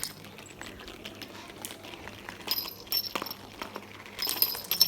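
Marbles rolling through a homemade marble run, with scattered clicks and two bursts of ringing clinks, about halfway through and near the end.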